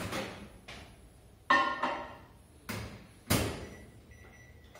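Handling at a microwave oven: a bowl knocks and rings briefly about a second and a half in, then a lighter knock, then the microwave door shuts with a deep thud a little after three seconds, the loudest sound here.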